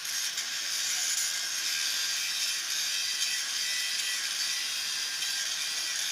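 Hand-held grinder grinding a steel pipe weld, a steady high-pitched grind.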